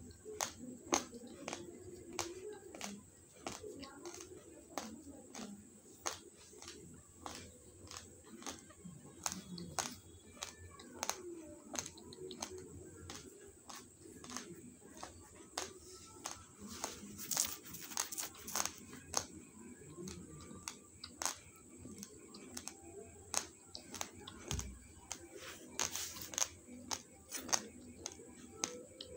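Raw basmati rice grains being chewed, a steady run of sharp crunches about two a second, over faint voices in the background.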